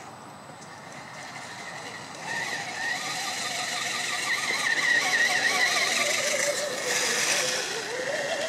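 Electric motor and gearbox of a radio-controlled scale crawler truck whining, the pitch wavering up and down with the throttle. It gets louder about two seconds in as the truck drives close by, with a short rush of noise about seven seconds in.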